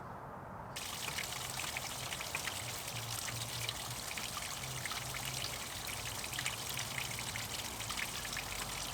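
Steady splashing of water, full of small crackles, starting abruptly about a second in, with a faint low hum underneath.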